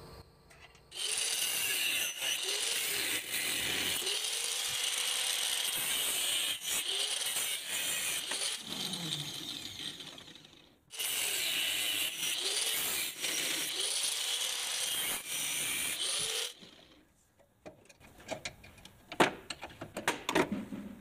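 Electric grinder grinding the edge of a steel plate down to a marked circle, in two long runs with a brief break between them, its pitch wavering as the steel is pressed in. A few sharp clicks and scrapes follow near the end.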